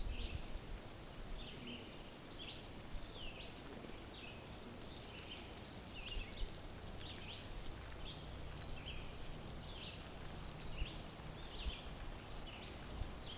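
Repeated short high chirps, about two a second, each note quick and varying a little in pitch, over a faint low background rumble.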